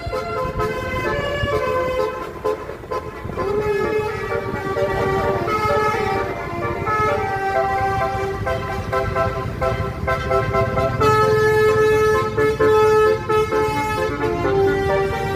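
Bus basuri musical horn playing a melody: held notes that step from pitch to pitch, over a low rumble.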